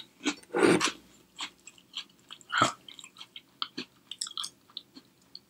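A person chewing a crunchy chocolate cookie with vanilla cream filling: irregular crunches, the louder ones about half a second in and about two and a half seconds in, thinning to small scattered crackles.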